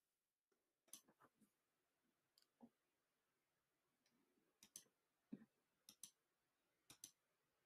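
Faint computer clicks: about a dozen sharp, short clicks at irregular intervals, several coming in quick pairs.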